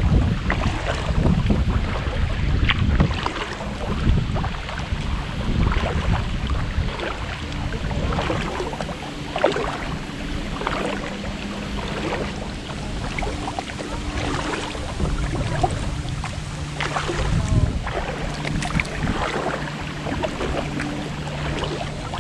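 Kayak paddle strokes dipping and splashing in calm river water, with wind buffeting the microphone, strongest in the first few seconds.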